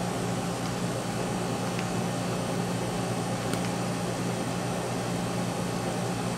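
Steady low electrical hum of a running kitchen appliance, with a couple of faint clicks.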